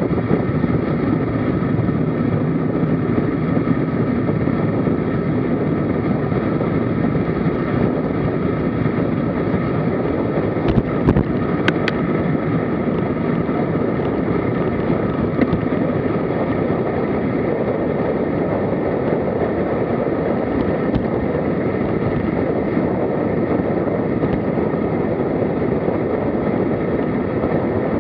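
Steady rush of wind over the microphone of a camera on a road bicycle moving at about 30–46 km/h, with a few sharp clicks about a third of the way through.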